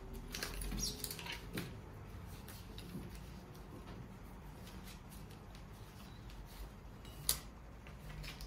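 Faint scraping and light metal ticks of a brass pressure relief valve being threaded by hand onto a boiler pipe fitting, with one sharp click near the end.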